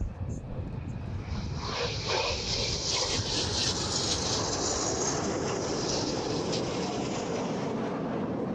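Jet noise from Alpha Jet engines, a steady roar that swells about a second and a half in, with a high whine in it that slowly falls in pitch.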